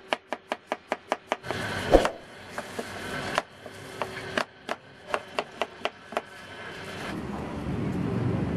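Chef's knife chopping carrot on a wooden cutting board, quick even chops about five a second, with one sharper knock about two seconds in. Then slower, uneven cuts as a green apple is sliced. Near the end the chopping stops and a steady hiss takes over.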